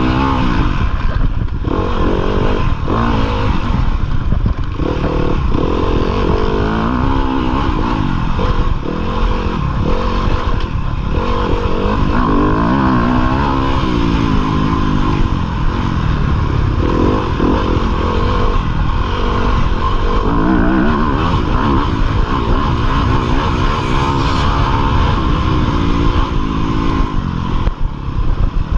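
2015 Yamaha YZ250FX's single-cylinder four-stroke engine under hard riding, its revs rising and falling over and over as the throttle is worked and gears change, heard close from the rider's chest.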